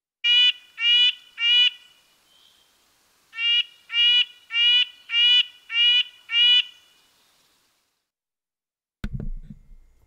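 Red-breasted nuthatch giving its nasal calls: three short calls in quick succession, a brief pause, then a run of six more.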